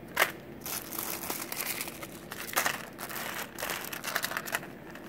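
Clear plastic jewelry bags crinkling and rustling as a hand sorts through them, in irregular crackles. The sharpest ones come about a quarter second in and around two and a half and three and a half seconds in.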